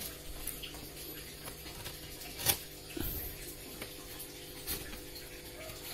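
Packaging of a live-fish shipment being handled and opened, with a few short sharp clicks over a steady low hum.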